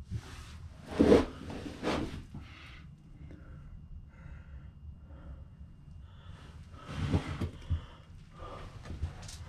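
Close breathing and handling noise from someone moving about with a handheld camera in a small wooden room. It comes in a few short noisy bursts over a low rumble, loudest about a second in and again around seven seconds.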